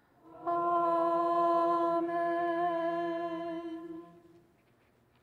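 Unaccompanied voice chanting the closing "Amen" of the benediction, held on one steady note for about three and a half seconds and then fading away.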